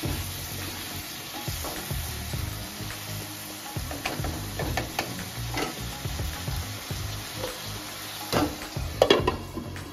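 Anchovies and crushed coconut sizzling in a non-stick pan while a wooden spatula stirs and scrapes through them, making scattered light clicks. A few louder knocks come near the end.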